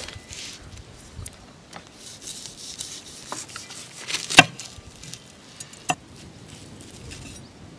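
Chef's knife slicing an ash-roasted celeriac with a charred skin on a wooden cutting board: soft scraping, with scattered knocks of the blade on the board, the sharpest about four seconds in and another about six seconds in.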